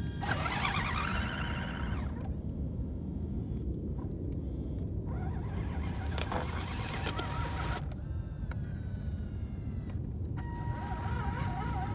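Electric motor and gears of an Axial SCX10 scale RC crawler whining in stretches, the pitch gliding up and down with the throttle, with a steadier whine near the end, over a constant low rumble.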